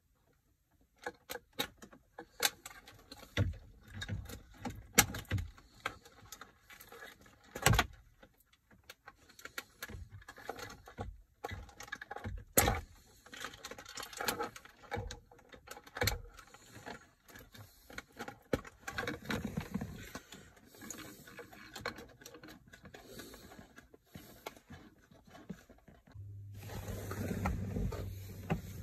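Irregular clicks, knocks and rattles of hands handling a plastic aftermarket Android touchscreen head unit and its wiring-harness plugs at a car dashboard. A steady low hum comes in near the end.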